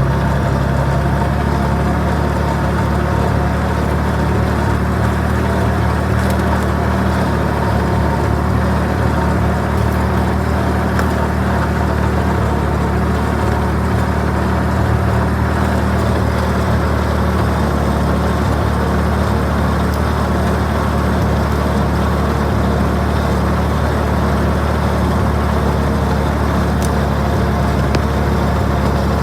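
Clarktor tow tug's engine running at a steady, unchanging speed.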